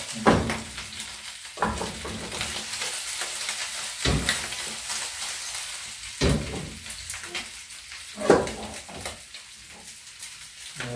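Goat rib pieces frying with a steady sizzle in a wide wok. About five sharp knocks and scrapes of a utensil against the pan come as the meat is stirred.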